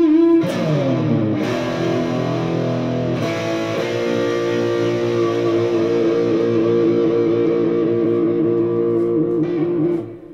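Solid-body electric guitar played through an amplifier: a chord slides down in pitch about half a second in, then long sustained notes ring with vibrato. The playing cuts off about ten seconds in.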